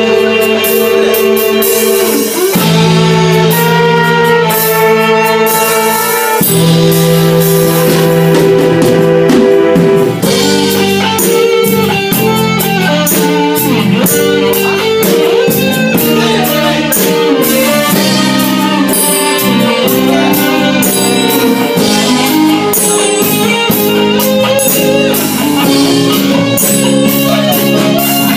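A live mixed ensemble of guitars, cello, saxophone and drums playing a song together in rehearsal, with held chords changing every few seconds over a steady beat.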